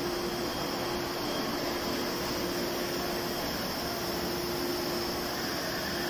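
Steady whir of running factory machinery, a flexo printing press with its UV LED curing units switched on, with a steady hum over the noise.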